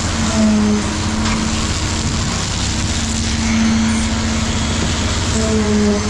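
Concrete pump running steadily, with a fast, even low engine rumble as concrete is pushed through the hose into the footing forms. A steady humming tone fades in and out over it.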